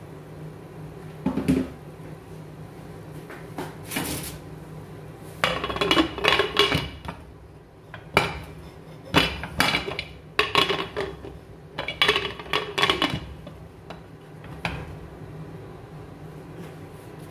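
Pressure-cooker lid being fitted and its handle locked onto the pot: a string of metal clanks and scrapes, several of them ringing, in clusters.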